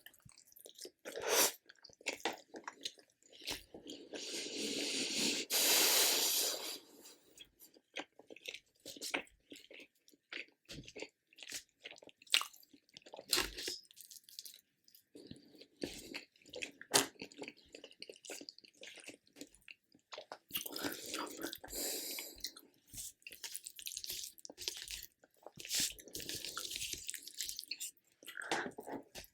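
Close-miked eating: a person biting and chewing food, with crunching and many small wet mouth clicks. The loudest, longest crunching comes about four to six seconds in, with more stretches of chewing in the second half.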